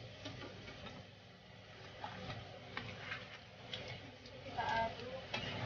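A cooking utensil tapping and clinking against a wok or bowl while seasonings are added to the seafood: scattered light clicks.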